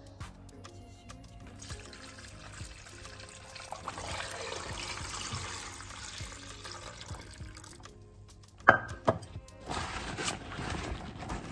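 Liquid being poured under background music: a steady pour through the middle, a few sharp knocks about three seconds from the end, then another short pour.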